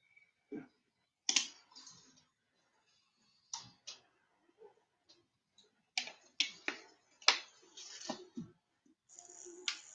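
A string of sharp, irregular clicks and snaps, sparse at first and coming thicker from about six seconds in.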